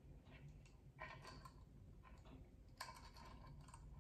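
Faint clicks and scrapes of a small metal ring being worked with the fingers and fingernails. There are two slightly louder clicks, about a second in and near the end.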